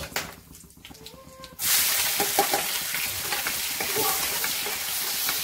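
Chopped onion dropped into hot oil in a kadhai with garlic and cumin: light scraping of a metal spatula, then a sudden loud, steady sizzle about a second and a half in as the onion hits the oil and is stirred.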